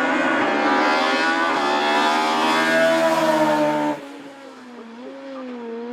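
Opel Kadett C racing car's engine pulling hard under full throttle, revs climbing with a short dip for a gear change about a second and a half in. About four seconds in the sound drops abruptly to a quieter engine note whose pitch wavers up and down.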